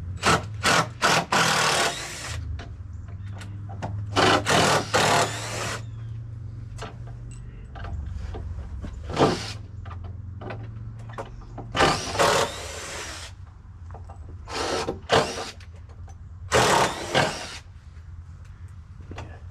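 Cordless drill driver backing screws out of a metal joist hanger in repeated short trigger bursts.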